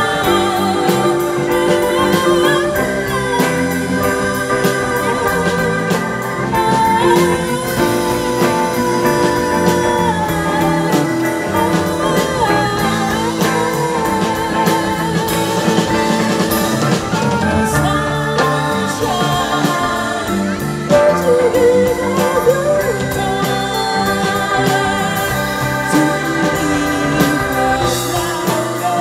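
Live band music: a woman singing a slow song over electric guitar, bass, keyboard and drums, with a trumpet in the band.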